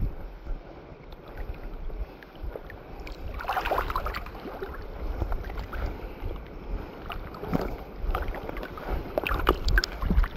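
Water lapping and sloshing against the hull of a small wooden outrigger boat, in irregular swishes, the strongest about four seconds in.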